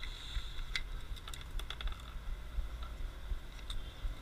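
Irregular light clicks and taps of hands handling fishing tackle, bunched together about a second in and scattered after, over a steady low rumble.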